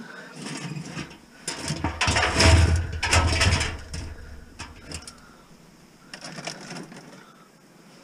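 Scrap electrical wire offcuts rustling and knocking against the sides of a plastic bin as a gloved hand pushes them down. It is loudest for a couple of seconds near the start, then settles to lighter rustling.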